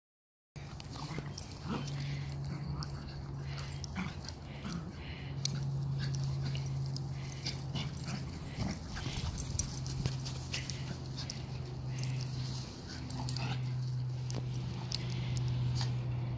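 Two dogs play-fighting, with long low play-growls broken by short pauses and a few sharp clicks.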